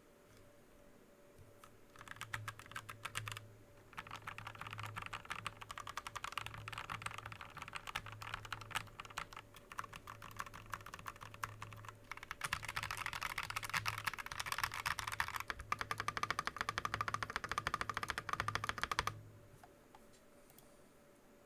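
Typing on a TM980 mechanical keyboard with Akko Lavender tactile switches and Drop Keysterine Raspberry keycaps: a rapid stream of keystroke clacks that starts about two seconds in, pauses briefly around four seconds, gets louder and denser from about twelve seconds, and stops about nineteen seconds in.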